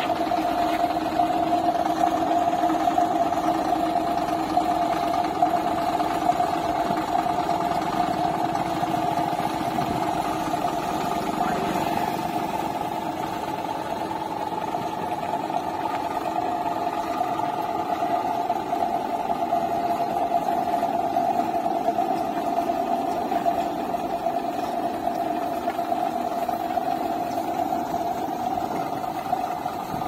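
Hind combine harvester's diesel engine running steadily as the machine drives, a constant mechanical drone.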